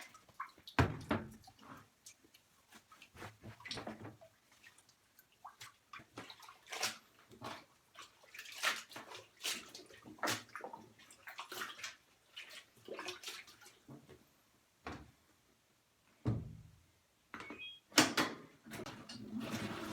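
Water splashing and sloshing irregularly as a white cotton towel is pushed down into the hot dye bath in a washing machine tub, with short quiet gaps between splashes.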